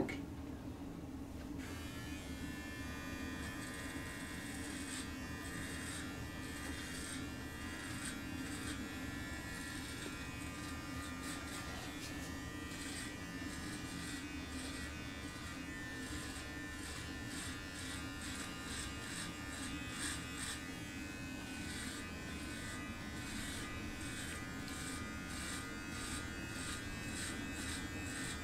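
Manscaped Lawn Mower 4.0 battery body trimmer buzzing steadily as it is run over the stomach, trimming body hair.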